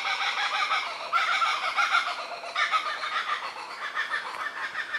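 Laughing kookaburras calling in their chattering laugh, a fast run of repeated cackling notes. It is loudest in the first half and gradually dies down toward the end.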